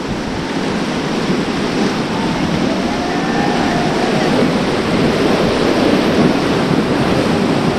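Whitewater river rapids rushing around an inflatable raft, a steady loud rush of water that grows a little louder as the raft moves into the white water.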